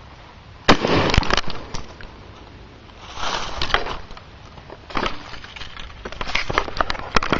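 A single point-blank blast from a Mossberg 12-gauge shotgun firing #7½ birdshot into stacked plywood, sudden and very loud about a second in. It is followed by quieter handling and crunching noises and a few clicks.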